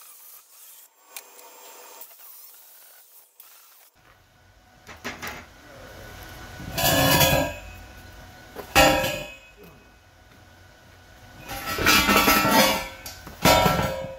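Heavy steel pipes being handled and set in place: several loud metal clangs and scrapes with a ringing tone, the two longest scrapes lasting about a second, after a quieter first few seconds.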